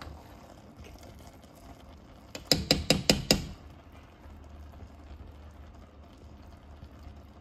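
A metal spoon knocked against a non-stick pan about six times in quick succession, a couple of seconds in; otherwise only a faint low hum.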